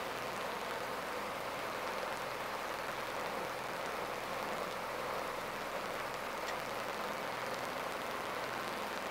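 Scania R450 truck cruising, heard from inside the cab: a steady hiss of tyre and road noise over the low, even hum of its 13-litre six-cylinder diesel.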